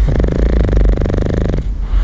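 A bulldog snoring: one rattling snore lasting about a second and a half, which stops about 1.6 seconds in, over a steady low rumble.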